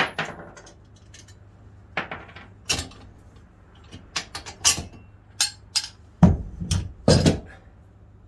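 Metal clanks and knocks from the steel bar of a manual tyre changer being worked against the changer and a motorcycle wheel while the tyre is being taken off the rim. There are a few heavier thuds about six to seven seconds in.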